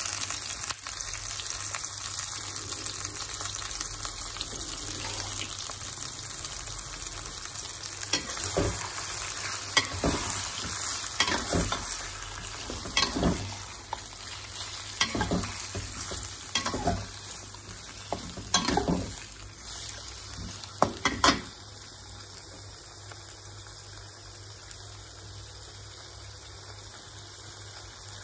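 Beef liver frying in oil in a wok with sliced onion and ginger, sizzling steadily. Through the middle, a metal wok spatula stirs it, scraping and clacking against the wok again and again. Near the end the sizzling goes on alone, a little quieter.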